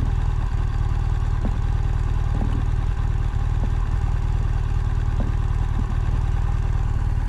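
BMW R1200GS boxer-twin motorcycle engine idling steadily while the bike stands still, with a few faint ticks.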